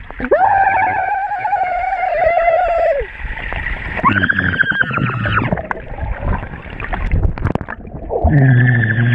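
Human voices heard underwater, muffled and dull: three long wordless cries or hums, the first high-pitched and held for about three seconds, another about four seconds in, and a lower one near the end.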